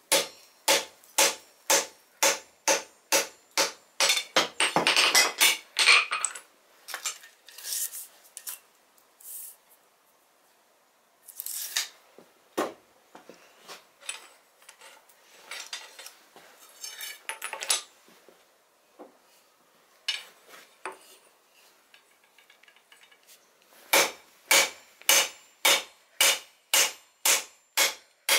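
Hand hammer striking red-hot steel rebar on an anvil, a regular run of blows about two a second. After about six seconds the steady hammering stops and there are only scattered lighter knocks and clinks. Near the end a fresh run of steady blows begins.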